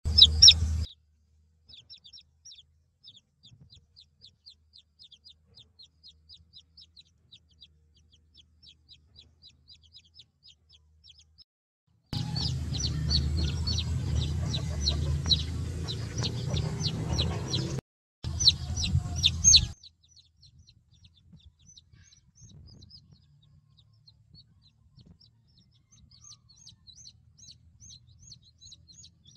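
Chicks peeping: a long run of short, high, evenly spaced peeps, about three a second, with a louder low rumble under them from about twelve to twenty seconds in.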